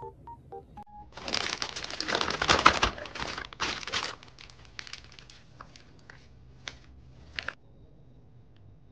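Plastic piping bag crinkling loudly as it is filled with blue macaron batter and twisted shut, then a few lighter crinkles and ticks that stop about three-quarters of the way through.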